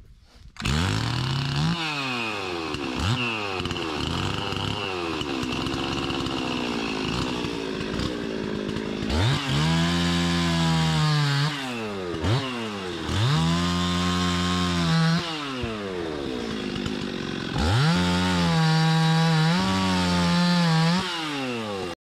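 Stihl two-stroke chainsaw running, first blipped up and down in short revs, then held at full throttle in three long stretches while cutting dead branches from a tree.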